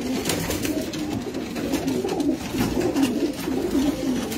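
Domestic pigeons cooing in a loft: a continuous low, wavering chorus of coos, with scattered sharp clicks over it.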